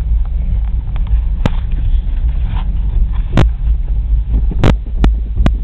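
Low, steady rumble of a car's engine and tyres heard inside the cabin at low speed on a snow-covered motorway, with a few sharp clicks spaced a second or two apart.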